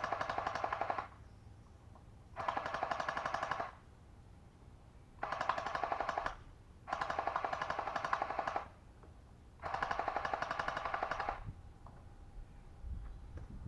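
Kris Vector gel blaster, electric with an 11-volt battery, firing on full auto in short bursts: a whirring gearbox with rapid clicking shots. One burst ends about a second in and four more follow, each one to two seconds long.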